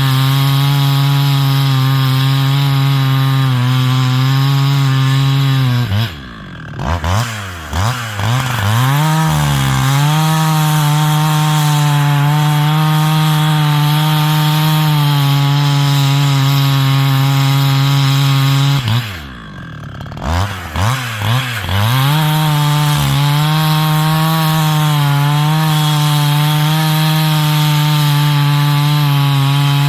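70cc chainsaw with a 25-inch bar bucking a stringybark log, held at full throttle through the cuts. Twice, about a fifth and about two-thirds of the way in, the throttle is let off and the engine drops to idle, then gives a few quick revs and goes back to full throttle for the next cut.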